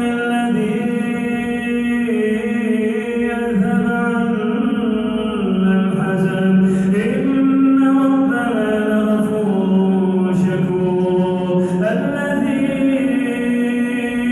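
A man reciting the Quran in a slow, melodic tajweed style, his voice holding long drawn-out notes that step up and down in pitch.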